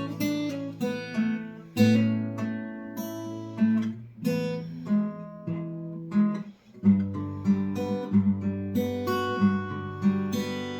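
Acoustic guitar played as a picked pattern, bass notes under higher melody notes with hammer-ons, with a short break about six and a half seconds in before it picks up again; the last notes ring out near the end.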